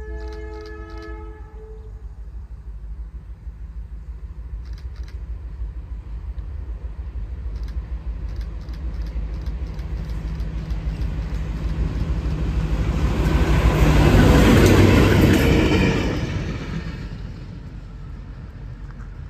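A Watco diesel locomotive pair running light engine sounds a short horn chord at the start, then approaches and passes close by: engine rumble and rail noise build to a peak about fifteen seconds in and fade away as it leaves.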